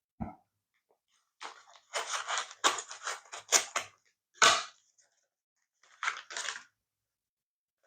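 A small mail packet being opened by hand: a short low thump, then about three seconds of sharp crinkling and rasping noises, and another short burst of them near the end.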